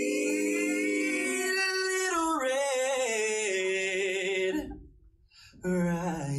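Male a cappella vocal group singing close harmony with no instruments, holding a chord with a wavering vibrato. The voices break off briefly about five seconds in, then start a new phrase over a low bass voice.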